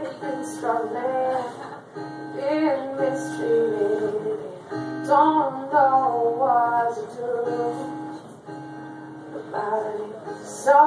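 A woman singing live, accompanying herself on acoustic guitar, her voice coming in phrases with short breaks between them over the guitar.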